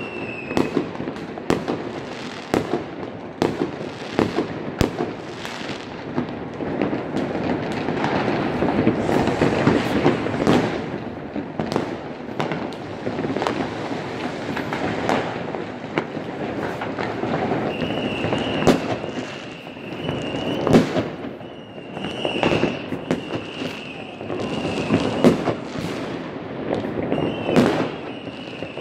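New Year's Eve fireworks going off all around: frequent bangs of firecrackers and rocket bursts at varying distances, thickening into a dense stretch about a third of the way in. Several long high whistles sound over the bangs in the second half.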